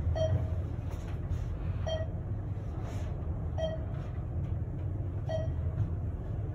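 Modernized Thyssenkrupp traction elevator cab travelling upward, with a steady low ride rumble. Over it come four short beeps, about one every 1.7 seconds: the floor-passing tone as each level goes by.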